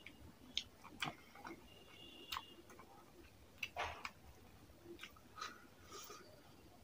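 Fingers mixing and squeezing rice with fish curry on a plate, giving faint, scattered wet clicks and squelches spaced irregularly, about one a second.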